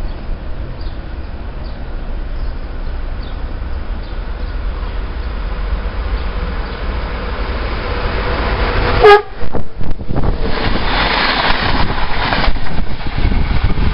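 Wind rumbling on the microphone, then a short horn blast from an approaching Renfe Media Distancia electric train about nine seconds in, followed by the loud rush of the train passing close by the platform.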